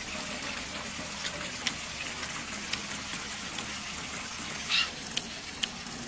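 A steady rushing background noise with scattered faint clicks and smacks of people chewing grilled pork ribs, and one short louder rustling burst about five seconds in.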